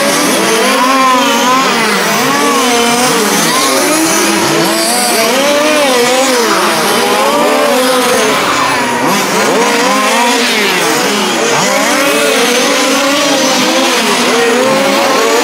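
Several 1:5-scale RC race cars with small two-stroke petrol engines lapping a track. Their engines rev up and down over and over, overlapping, as the cars brake into and accelerate out of corners.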